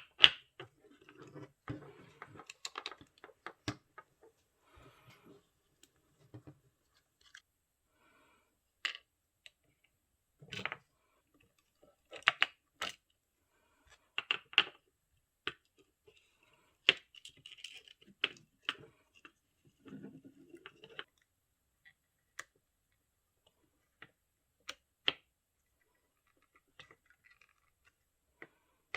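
Scattered sharp clicks and light taps of small hard objects being handled, some in quick clusters, with quiet pauses between them.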